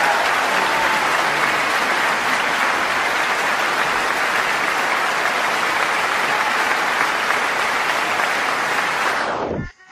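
A loud, steady rushing noise, even in character, that cuts off suddenly near the end.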